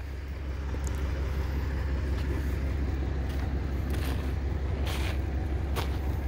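Dump truck's engine running steadily with a low hum, with a few short knocks.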